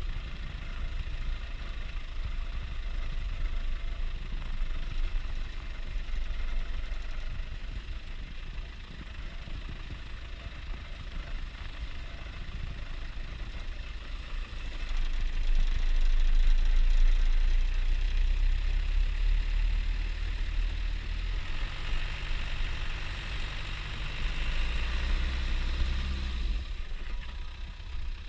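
Land Rover Defender 90 engine running as it drives, a low rumble that grows louder about halfway through and eases off just before the end.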